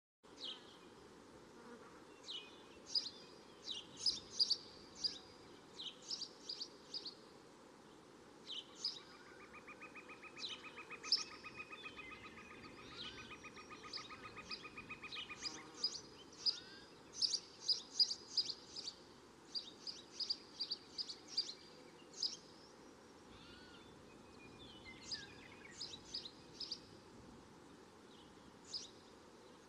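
Small birds chirping outdoors: many short, sharp, high calls repeating throughout, with a steady rapid buzzing trill from about nine to fifteen seconds in.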